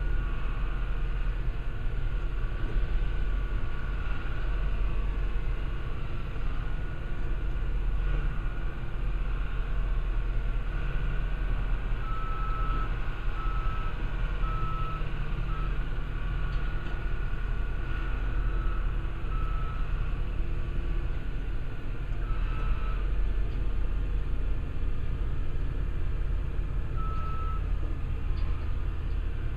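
Engine of a rail-mounted railroad-tie crane running steadily as the machine works and moves along the track, with its travel alarm giving short high beeps: a run of several about twelve seconds in, then single beeps now and then.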